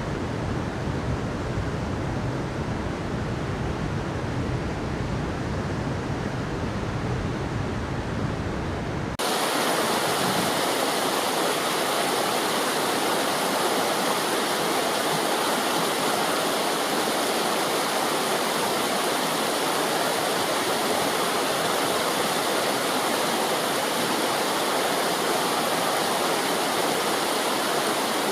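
Running water of a stream. About a third of the way in it cuts abruptly from a deeper, rumbling flow to a brighter, steady rush of splashing water, slightly louder.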